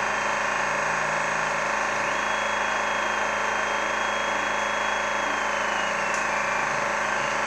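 CNC 2418 desktop engraver laser-engraving: a steady mechanical hum from its fans and stepper motors. A high whine comes in about two seconds in and slides down in pitch near the end as the axes change speed.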